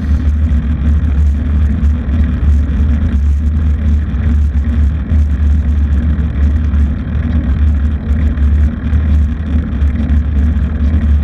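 A motor vehicle running steadily on the move, with heavy, fluttering wind rumble on the microphone.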